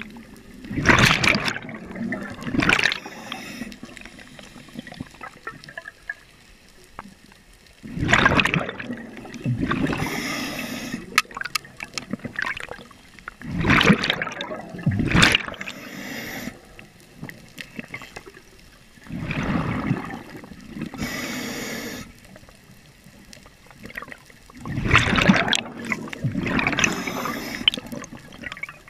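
Scuba diver's regulator breathing, heard underwater: five rounds of bubbling and hissing, about one every five to six seconds, with quieter pauses between breaths.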